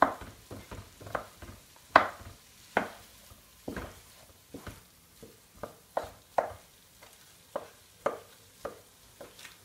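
Wooden spatula stirring potato and cauliflower in a nonstick wok, knocking and scraping against the pan about two or three times a second in an uneven rhythm.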